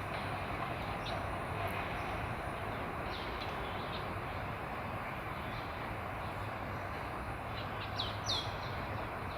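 Birds chirping now and then in short, high, downward-sweeping notes, several together about eight seconds in, over a steady outdoor background hiss.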